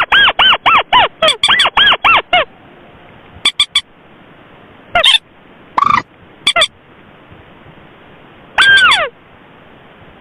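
Lure recording of common moorhen and crake calls: a fast run of repeated arched calls, about five a second, that breaks off after about two and a half seconds, then scattered single calls over a faint hiss.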